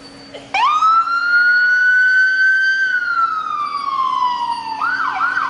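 Police car's electronic siren switched on: one loud wail that jumps up about half a second in, climbs slowly, then falls slowly. Near the end it changes to a quick yelp of about three sweeps a second.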